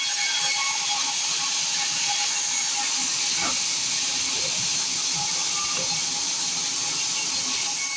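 Sawmill saw cutting through a large acacia log: a steady, loud hiss of the blade in the wood.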